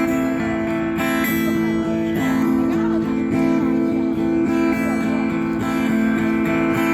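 Acoustic guitar music: strummed chords ringing on steadily, with no singing.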